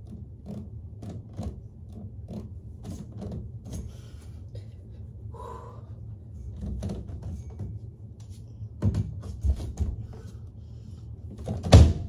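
Doorway pull-up bar knocking and creaking in its door frame as a person hangs and swings on it, with bare feet thudding on the carpeted floor. A few heavier thumps come about two-thirds of the way in, and the loudest knock comes just before the end as the bar takes his weight.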